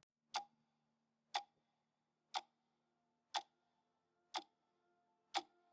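Faint, sharp ticks, evenly spaced one a second, six in all, with near silence between them.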